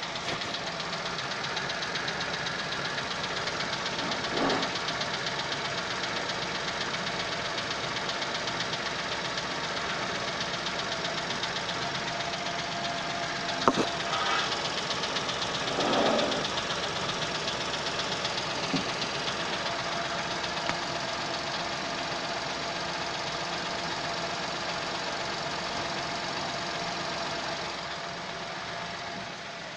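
Chevrolet Onix 2021 LS 1.0-litre three-cylinder engine running steadily after a cold start, with a fast, even rattling noise that the owner does not believe is normal. A few brief louder swells come through, and the engine gets a little quieter near the end.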